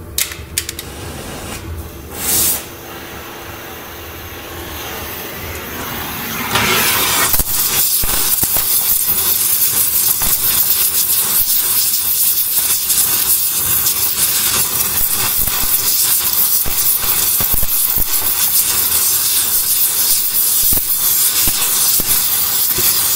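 Gas torch flame hissing as it heats a bent chassis frame member to a glow. The hiss grows louder about seven seconds in and then holds steady.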